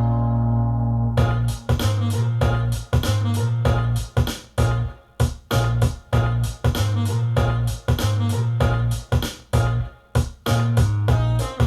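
Background music: a keyboard track with a steady electronic beat over a bass line.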